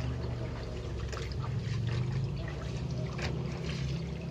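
Shallow water trickling, over a steady low hum.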